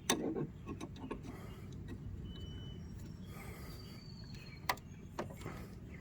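Scattered sharp metal clicks of an ordinary open-end wrench on a lawn mower's blade bolt as it is fitted and strained against, over a faint low background rumble. The bolt is stuck and will not loosen with the plain wrench.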